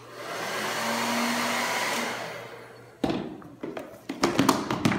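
A handheld hair dryer blowing, a steady rush of air with a faint low hum, that fades out after about two and a half seconds. From about three seconds in, a run of sharp knocks and thumps follows.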